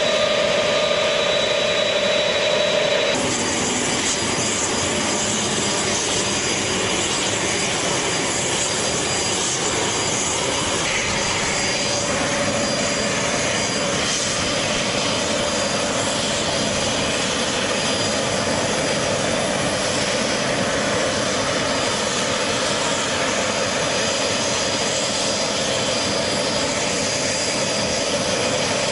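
Large military transport aircraft's engines running: a steady, dense engine noise with a thin high whine. The sound changes abruptly about three seconds in, as at a cut between shots.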